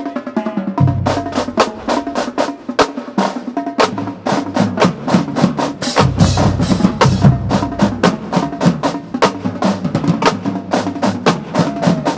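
Marching band drumline playing a cadence: rapid snare and tenor drum strokes with bass drums, the low drums coming in about a second in and growing heavier about halfway through.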